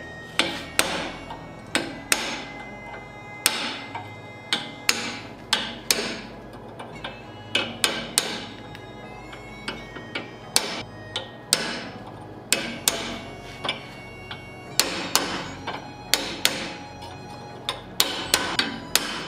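A hand hammer strikes a punch held against red-hot mild steel on an anvil, pushing in the eye socket of a forged skull. The sharp metallic blows come at an uneven pace, roughly one to two a second, each ringing briefly.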